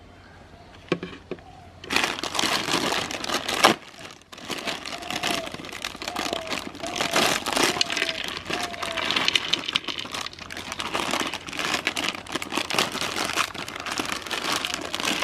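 Dense crinkling and crackling of Kurkure snacks and their packet, with many sharp crunchy clicks, starting about two seconds in and going on steadily.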